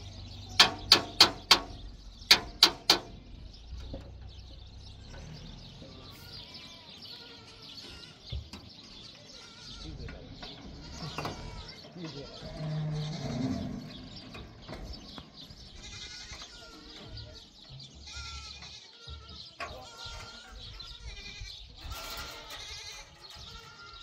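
Seven sharp, loud strikes near the start, four in quick succession and then three more. Goats then bleat on and off.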